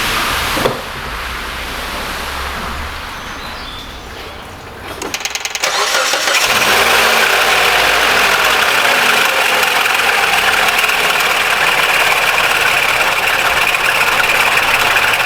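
Mitsubishi ASX 1.8 petrol engine, shut off with a click and then cranked over by the starter about five seconds in. It catches quickly and runs on loud and steady at idle.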